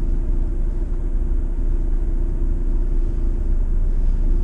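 Lorry's diesel engine running steadily at low speed, a constant low rumble with a steady hum, heard from inside the cab as the truck creeps onto the shuttle train.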